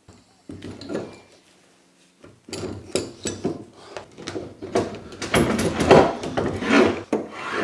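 Wooden vice face being worked along the steel guide bars and screw of an Axminster quick-release woodworking vice: wood and metal scraping, rubbing and clunking. A few light knocks at first, then from about two seconds in a busy run of scrapes and clunks.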